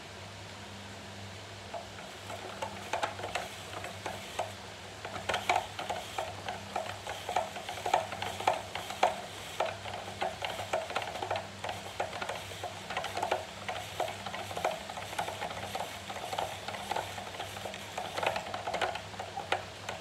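Hand-cranked spiralizer cutting a courgette into spiral noodles: a rapid, irregular crackle and clicking of the blade slicing and the crank turning, starting about two seconds in.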